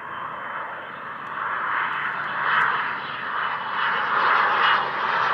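Engines of a Gates Learjet C-21A jet (twin Garrett TFE731 turbofans): a steady jet rush that grows louder over a few seconds in uneven swells.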